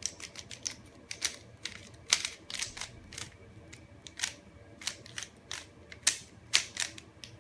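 Plastic layers of a twisty puzzle built from MoYu Mirror S cube pieces clicking and clacking as they are turned, bending the puzzle out of its cube shape. The clicks come irregularly, about two or three a second.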